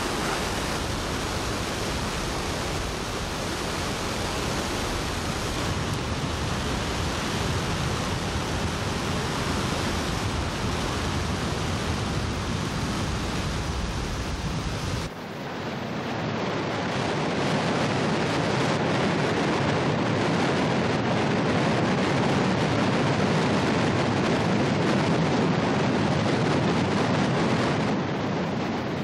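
Steady rushing noise of water pouring through the failed Folsom Dam spillway gate. About halfway it changes abruptly to a different, thinner steady rush with the deep rumble gone.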